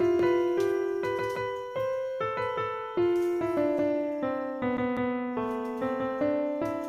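Background piano music: a slow melody of struck notes that ring and fade, a new note about every half second.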